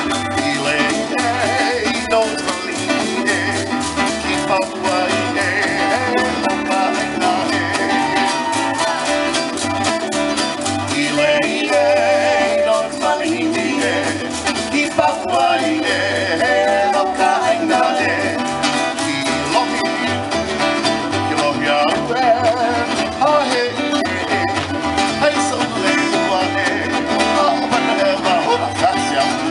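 Live Polynesian dance music: strummed acoustic guitar with a singing voice over a steady beat.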